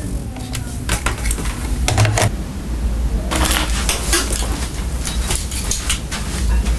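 Irregular clicks, knocks and light clatter of office equipment being handled: a desk phone, then a computer and its docking station. A low rumble runs underneath.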